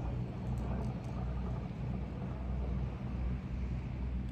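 Boat engine running steadily at low revs, a low, even hum.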